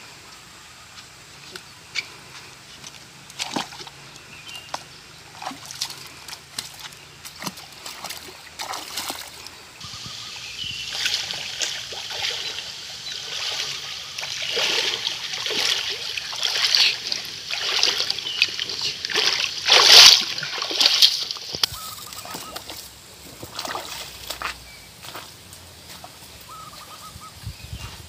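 Footsteps wading through a shallow rocky stream: irregular splashes and sloshes, thickest in the middle and loudest about two-thirds of the way in.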